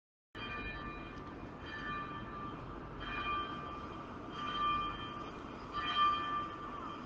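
Soft instrumental music: sustained chords that change about every second and a half.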